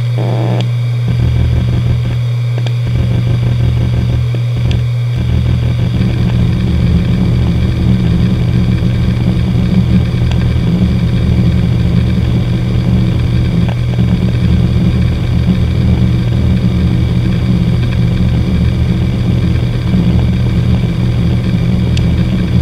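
Hitachi Deskstar 7K1000.C 500 GB 7200 rpm hard drive running, its spindle giving a steady hum. Its heads click a few times while the drive initialises, then from about five seconds in they chatter quickly and without a break in a random seek test.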